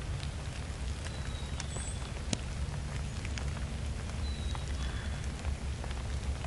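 Spring woodland ambience: a steady low rumble with scattered light ticks and pattering, and a few faint, thin, high bird calls.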